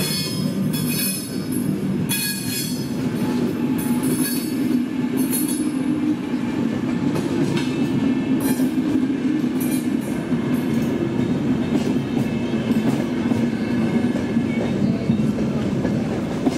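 Steady low rumble of a passing vehicle, with high metallic squeals in the first few seconds and briefly again later.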